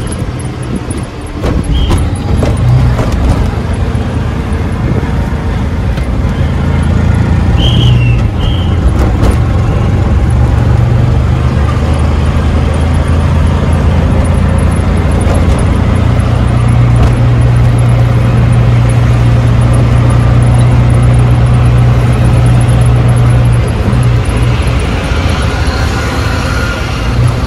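Auto-rickshaw engine running under way through traffic, heard from the ride, with road noise around it. The engine note steps up about halfway through and drops back near the end, and there are a few short high chirps early on.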